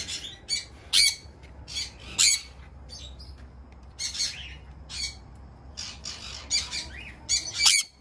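Parrots squawking: a run of short, harsh, high-pitched screeches, about two a second, with the loudest just before the end.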